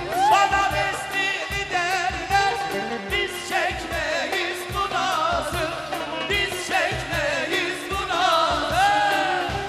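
Turkish pop-folk song: a singer's ornamented vocal line over a band with a steady, regular beat.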